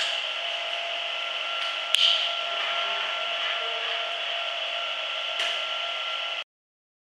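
Hanta Duster 300 rug-beating machine running with a steady mechanical noise and a faint steady tone under it. A sharp knock comes about two seconds in and a lighter one about five and a half seconds in, and the sound cuts off suddenly about six and a half seconds in.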